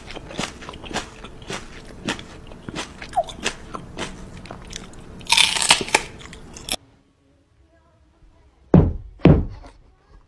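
Small dog's teeth clicking and crunching in quick, irregular chomps, with a loud hissy burst about five seconds in. The sound cuts off sharply, and near the end come two heavy thumps about half a second apart.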